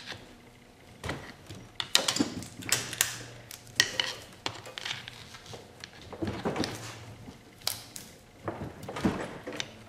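Irregular metal clinks, taps and scrapes of a screwdriver working at a stuck gear shift lever on a Yamaha YZ250F engine, trying to pry it off its shaft.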